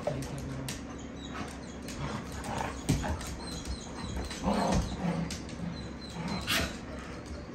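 Two dogs, a hound and a lab-hound mix, playing tug of war over a toy: short whimpers and yips among scattered clicks and scuffles on a hardwood floor, with a sharp knock about three seconds in.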